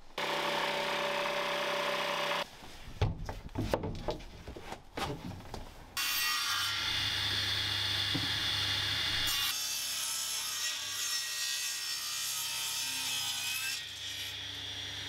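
Circular table saw running and ripping timber fed along its fence. A few seconds of irregular knocks from wood being handled come in the middle of the cutting.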